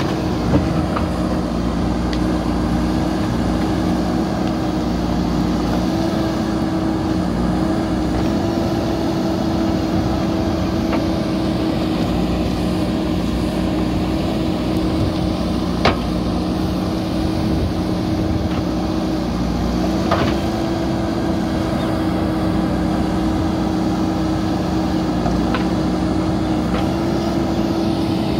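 JCB 3DX backhoe loader's diesel engine running steadily under load while the backhoe digs. A few sharp knocks sound over it, the loudest a little past halfway.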